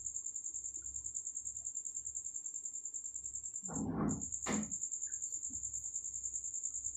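A cricket chirping in a steady, high-pitched pulsing trill. A short low sound and a sharp click come about four seconds in.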